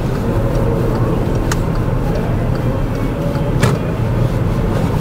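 Car engine and road noise heard from inside the cabin while driving slowly, a steady low rumble. Two short sharp clicks come about a second and a half in and again past three and a half seconds.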